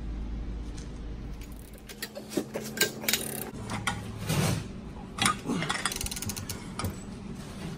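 Large ratchet with a pipe extension clicking, with metal clinks, as it is cranked by hand to drive a press shaft and push a seized front wheel bearing out of a steering knuckle. A low hum fades out about two seconds in.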